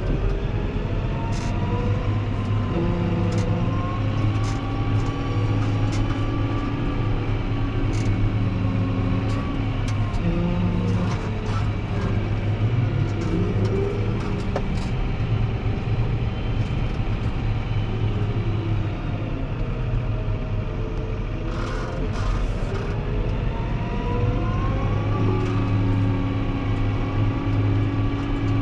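Fendt 724 Vario tractor's six-cylinder diesel running steadily under load, with a whine that rises and falls as the tractor speeds up and slows down. There are scattered sharp clicks and knocks.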